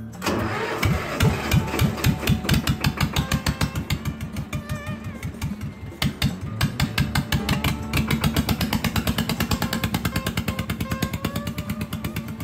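Hebei 295 two-cylinder diesel engine of a Shenniu 4/25 tractor starting up and running at idle with a rapid, even beat: its first run after a cylinder head gasket replacement. Guitar music plays underneath.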